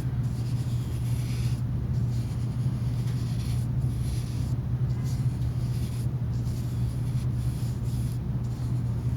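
Paintbrush strokes of tempera paint on paper: soft, repeated swishes coming and going about once a second, over a steady low hum.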